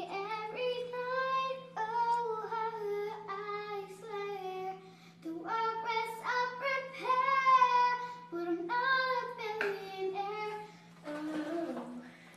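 A young girl singing, holding long notes that slide up and down, over a steady low hum. A brief rustle sounds near the end.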